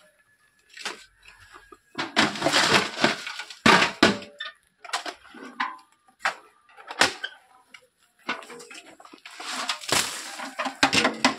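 Irregular knocks and clatters, with two longer rough scraping rushes, one about two seconds in and one near the end.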